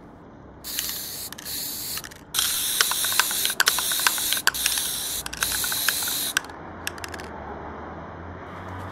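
Aerosol spray-paint can hissing as a graffiti tag is sprayed: a shorter spray about a second in, then a longer, louder one from about two and a half to six and a half seconds, with sharp clicks running through it. A few separate clicks follow after the spraying stops.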